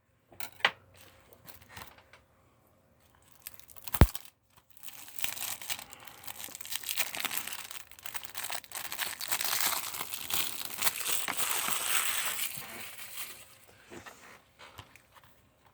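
Plastic shrink-wrap being torn and peeled off a Blu-ray case: a dense, crinkly crackle from about five seconds in to about thirteen. A single sharp click comes about four seconds in.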